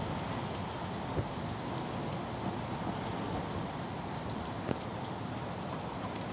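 Heavy thunderstorm rain pouring steadily, with two sharper taps of drops striking something close by, about a second in and near the end.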